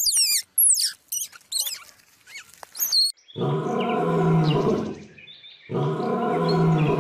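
A run of quick, high chirps falling in pitch, then two long, low animal calls with a throaty, roar-like tone, the first about three seconds in and the second near the end.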